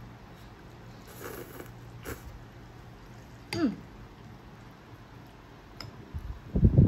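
A low steady hum with a few faint clicks, and one short squeal falling in pitch about halfway through. Near the end, wind starts buffeting the microphone.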